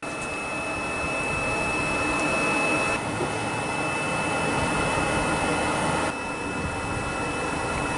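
Blower motor of an Envirotech APM 460DXNL respirable dust sampler running, drawing air through its filter: a steady rushing noise with a thin high whine over it.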